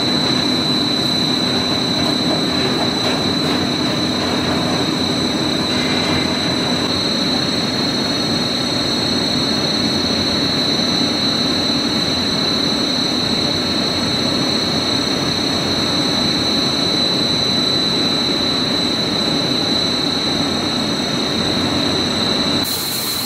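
Straight line wire drawing machine running: steady mechanical noise of wire being drawn over guide rollers and the capstan drum, with a steady high whine over it. Just before the end the sound changes abruptly to a brighter hiss.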